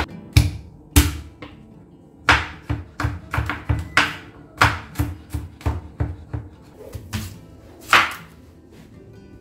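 Chef's knife chopping garlic on a wooden cutting board: the blade knocks the board in a quick, uneven run of strokes, about two to three a second, with one louder stroke near the end.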